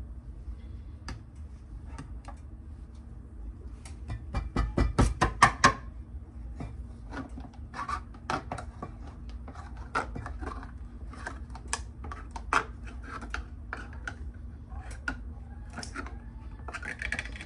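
Kitchen handling noise from a can of coconut milk and utensils being worked over a pot of rice: a quick run of loud metallic clicks and knocks about four to six seconds in, then scattered taps and short scrapes.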